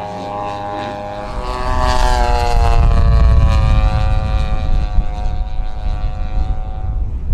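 Engine and propeller of a large-scale radio-controlled propeller airplane flying past overhead. Its pitch drops at about two to three seconds in as it passes, then its steady drone carries on as it flies away, over a low rumble that grows louder from about a second and a half in.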